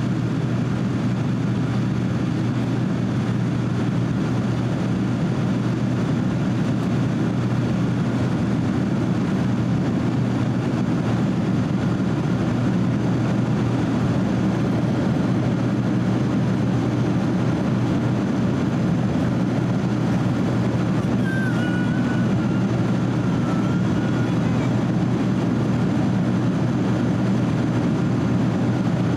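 Steady in-flight cabin noise of a Boeing 767-300 heard from a window seat over the wing: the even, low roar of the turbofan engines and rushing airflow, with a deep hum underneath.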